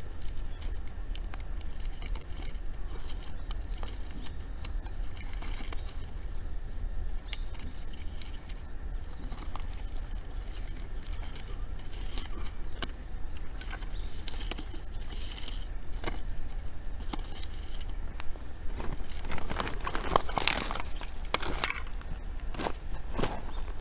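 Wood fire of dry fuel crackling, with scattered irregular pops over a steady low rumble of wind on the microphone. A short high chirp comes twice, and the crackling grows denser near the end.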